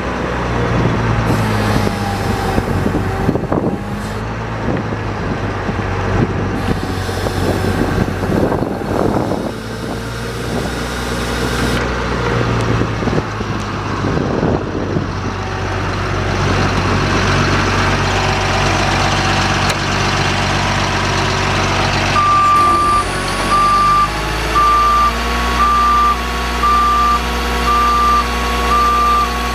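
2006 GMC C7500 bucket truck's engine running steadily. About two-thirds of the way in, its reversing alarm starts beeping about once a second.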